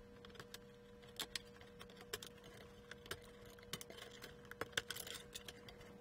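Faint, irregular clicks and small rattles of plastic wire-harness connectors being unplugged from a circuit board and the board being handled.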